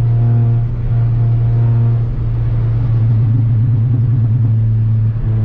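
Inside the cabin of a Volkswagen Golf driving flat out at around 200 km/h: a steady low engine and road drone.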